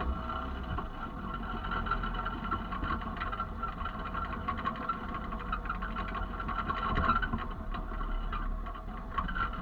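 A motor vehicle's engine running steadily with a low rumble, with scattered small rattles and knocks over it.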